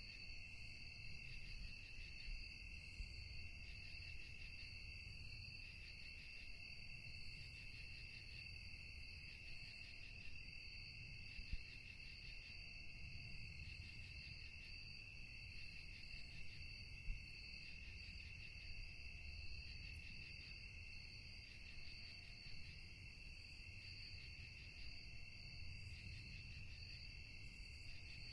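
Crickets chirping in a steady, unbroken chorus: two high, continuous trills layered together. Under them is a faint low rumble, and a faint short lower note repeats about every two seconds.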